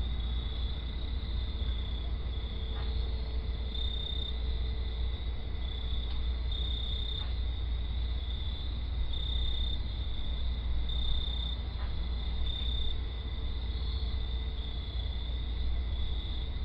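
Crickets chirping in a steady trill that swells and fades every second or two, over a low steady rumble of night-time background noise.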